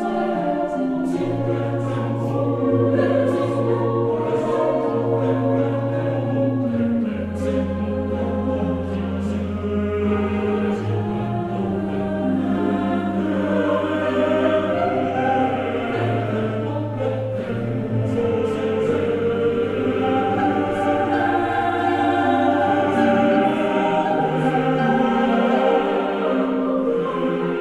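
Background music: a choir singing sustained chords over a slow bass line that changes note every few seconds.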